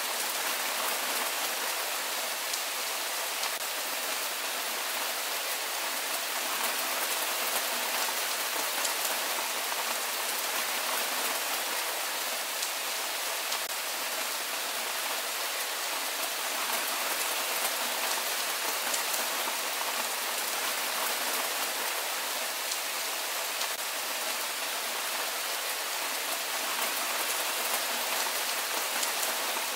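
Steady rain falling, an even hiss dotted with the fine ticks of single drops landing, unchanging in strength.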